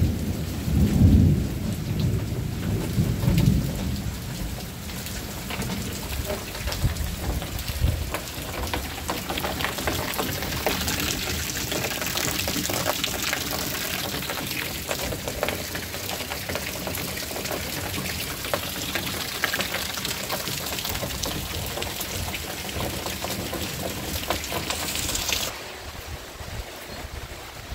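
Steady rain falling, with a low rumble of thunder in the first few seconds. Further on, drops tick and splash into a plastic water tank. Near the end the sound drops abruptly to a softer rain hiss.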